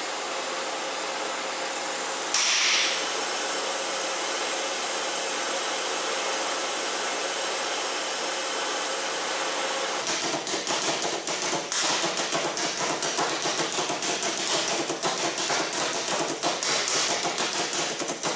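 Home-built pulse detonation engine on a test rig: a steady hiss of flow through the tube, with a short louder hiss about two and a half seconds in. About ten seconds in the engine lights and fires as a rapid, continuous train of sharp pops.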